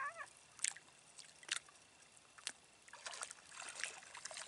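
Small waves lapping and splashing against shoreline rocks: scattered sharp little splashes about once a second, coming thicker near the end.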